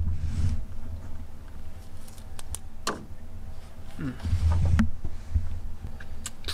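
Scattered light clicks and clinks of small things being handled at the engine bay, over a low steady rumble.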